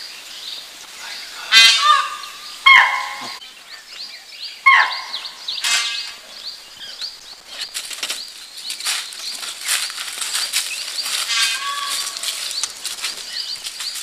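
Wild birds calling: several loud, harsh calls in the first six seconds and one more near the end, over a constant background of short high chirps and scattered crackles.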